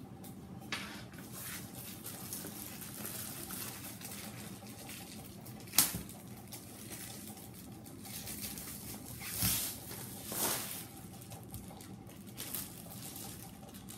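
Clear plastic wrapping crinkling and rustling as it is peeled off a rolled mat. A single sharp knock about six seconds in is the rolled mat set upright on the wooden desk, and two louder crinkles come near the middle of the stretch.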